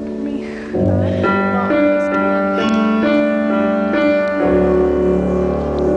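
Piano music accompanying a dance solo: sustained chords with a melody of separate notes above them, a louder chord coming in about a second in and another chord change near the end.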